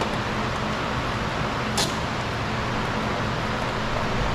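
Steady background hum and hiss, with one sharp click a little under two seconds in.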